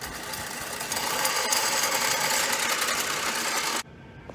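Loud mechanical buzzing with a fast rattle, starting abruptly and cutting off suddenly a little before the end.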